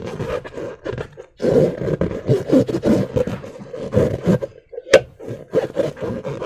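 Slime being squished and worked by hand, an irregular run of wet squelching sounds in clusters with short pauses, with one sharp snap about five seconds in.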